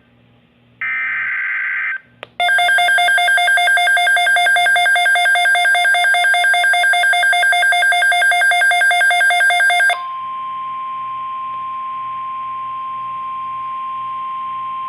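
About a second in, a one-second burst of the Emergency Alert System's digital SAME header, a harsh warbling data screech. Then a loud, rapidly pulsing electronic alarm beep sounds for about seven seconds. It gives way to the steady single-pitch 1050 Hz NOAA Weather Radio warning tone, which runs for about five seconds and cuts off.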